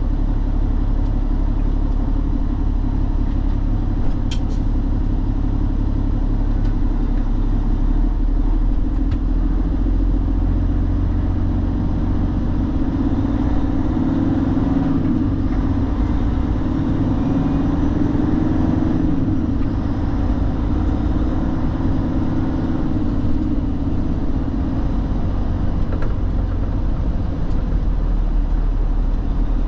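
Truck's engine running steadily on the move, with the engine note growing louder for about ten seconds midway. One sharp click about four seconds in.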